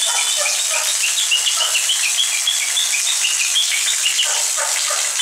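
Birds chirping rapidly and continuously over a steady hiss of rain and water pouring off a roof edge onto wet ground.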